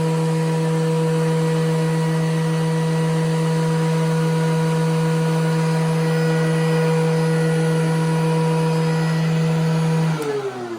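DeWalt DW735 thickness planer running at a steady pitch, then switched off about ten seconds in, its whine falling in pitch as the motor and cutterhead spin down.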